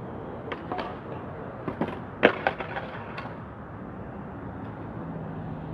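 Skateboard knocking and clattering on concrete during a trick attempt: a handful of sharp knocks over about three seconds, the loudest about two seconds in.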